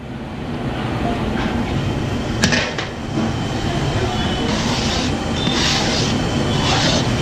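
Spatula scraping and stirring the sticky motichoor boondi mixture around a metal kadai, in scrapes about once a second over a steady rumbling background. There is a sharp click about two and a half seconds in.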